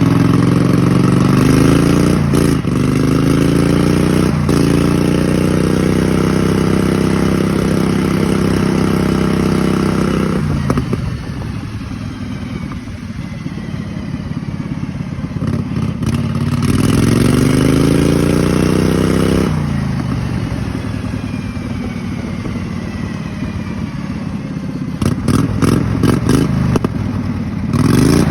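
Kohler Command V-twin engine of a racing lawn mower running hard, pitch climbing under load and holding high, then backing off about ten seconds in. It climbs again about two-thirds of the way through and eases off. Near the end comes a quick run of clattering knocks, then another rise in revs.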